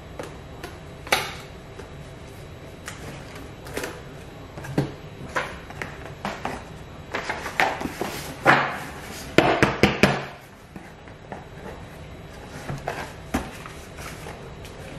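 Card boxes and booklets being handled and packed into a cardboard box on a wooden table: irregular knocks, taps and scrapes, busiest about seven to ten seconds in.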